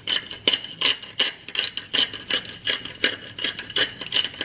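Hand-twisted pepper mill grinding peppercorns, a steady run of gritty crunching strokes about three a second.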